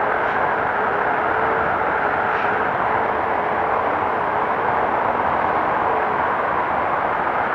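Polaris RZR side-by-side driving off-road: the engine running steadily under a constant rush of wind and tyre noise, its tone wavering slightly.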